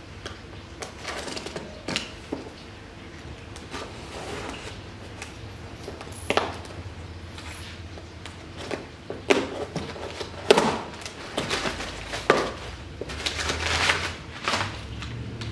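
Cardboard shipping box being opened and handled by hand: irregular rustles, scrapes and knocks of the cardboard, busier and louder in the second half.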